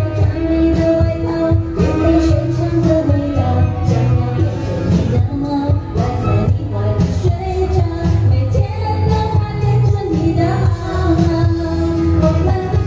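Live band playing a pop song: a woman singing over keyboard, violin and saxophone, with a steady beat.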